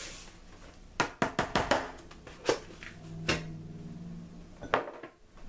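Kitchen items being handled between ingredient additions: a quick run of five sharp taps about a second in, then three single knocks spread over the next few seconds.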